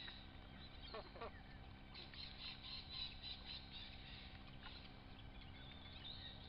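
Ducklings peeping faintly: a couple of falling calls about a second in, then a quick run of high peeps from about two to nearly four seconds in, over a steady low hum.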